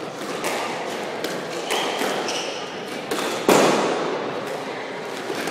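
Squash balls knocking on the walls and wooden floor of a squash court, each knock ringing in the hall, with one loud strike about three and a half seconds in. Around two seconds in come a few short shoe squeaks on the wooden floor.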